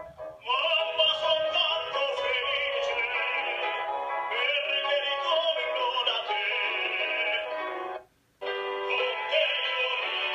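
Male operatic voice singing a sustained line with wide vibrato, with a grand piano accompanying. The music stops briefly, about eight seconds in, then picks up again.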